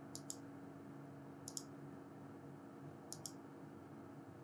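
Computer mouse clicked three times, about every second and a half, each a quick press-and-release pair of faint ticks, over a faint steady hum.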